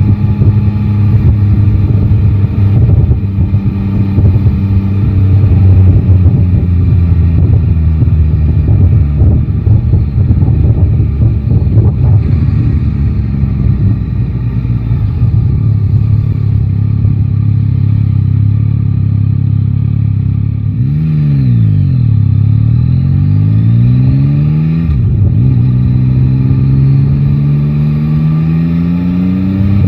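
Yamaha Tracer 9 GT's inline-three engine running on the move, with wind buffeting the microphone. About twenty seconds in the engine note rises and falls, then climbs again through a gear change as the bike accelerates.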